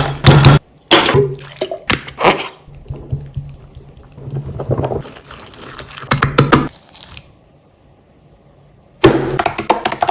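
Slime being squeezed and crushed: wet, sticky squelching with crackles in irregular bursts. It goes quiet about seven seconds in, then a louder burst comes near the end.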